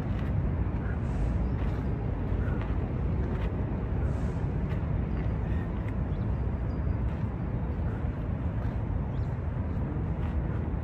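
Steady low outdoor rumble of wind and distant city traffic, with faint irregular scuffs of feet on gravel.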